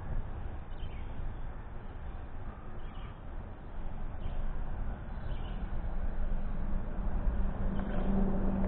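Steady outdoor background noise with a few faint, scattered bird chirps. A low steady hum comes in near the end and grows louder.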